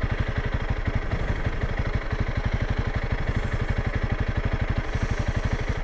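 Honda CRF300L Rally's single-cylinder engine idling steadily, a fast, even putter.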